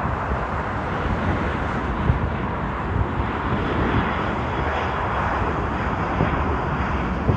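Jet airliner on landing approach passing close by: a steady rush of engine noise, with a faint high whine coming in about halfway through.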